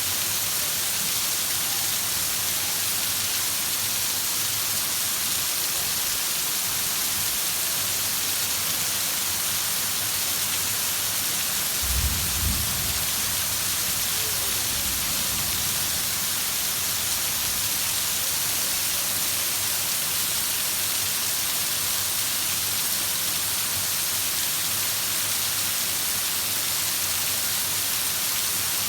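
Heavy rain falling as a steady, even hiss. Just before the middle there is a brief low rumble lasting about a second.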